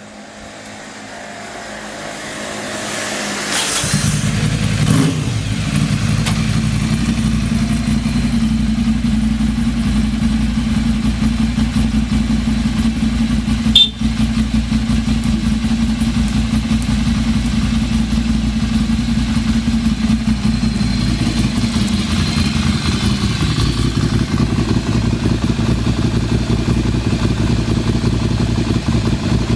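Ducati Monster 696's air-cooled L-twin engine starting on the electric starter about four seconds in, then idling steadily, with one sharp click partway through. It is a first-press start and a stable idle with no abnormal noise.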